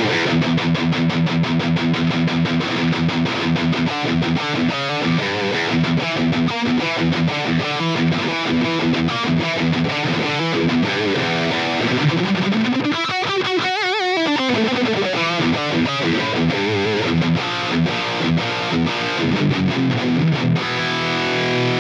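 Electric guitar through the Line 6 Pod Go's Mesa Boogie Rectifier amp model, pushed by a Tube Screamer-style overdrive (Hedgehog D9), playing heavily distorted metal riffing. The playing has fast chugging notes and a wide bend up and back down with vibrato a little past halfway, and ends on a held chord ringing near the end.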